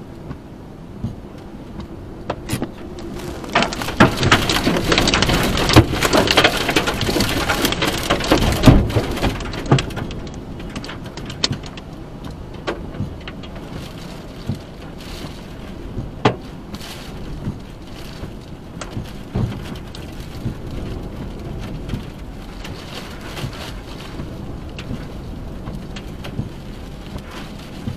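Tornado-driven heavy rain and wind lashing a car, heard from inside the cabin, with many sharp taps of rain and debris striking the body and windshield. The rain and wind surge loudly from about four to ten seconds in, then ease to steadier rain with scattered taps.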